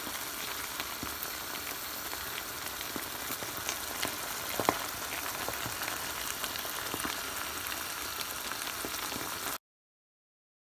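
Thick goat stew sauce sizzling in the pan, a steady hiss with scattered small pops and one louder pop about halfway through; it cuts off suddenly near the end.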